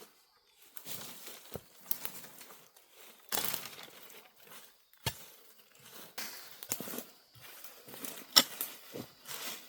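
Irregular rustling and crinkling of dry plant material, broken by a few sharp snaps, the loudest about eight seconds in.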